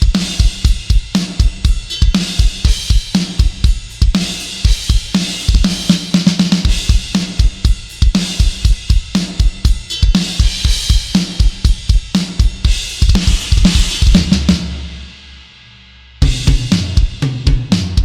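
Sampled metal drum kit from EZdrummer 3's Drums of Destruction library, playing a fast groove of rapid kick drum strokes, snare and cymbals. About fourteen and a half seconds in the beat stops and a cymbal rings out, then the drums come back in near the end.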